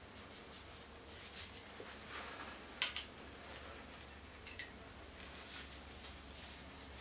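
A small metal firearm part being handled and wiped clean, giving a few light clicks: the loudest about three seconds in, then a quick double click a second and a half later, over a steady low hum.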